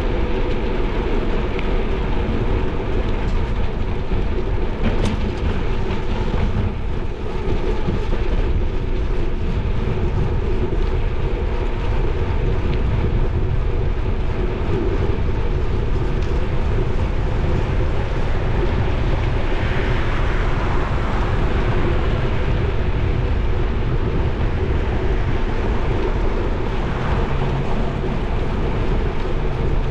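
Bicycle rolling steadily along an asphalt bike path: continuous tyre rumble and wind noise on the ride camera's microphone.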